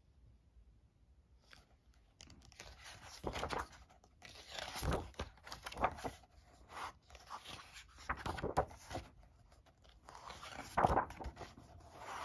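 Pages of a hardcover book being turned one after another: a series of irregular paper rustles and swishes, starting about two seconds in.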